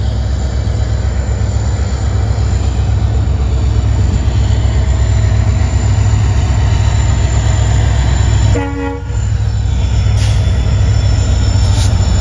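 WDP4D diesel locomotive's 16-cylinder two-stroke EMD engine running with a steady deep rumble as it hauls a passenger train slowly along the platform. A brief tone sounds about nine seconds in.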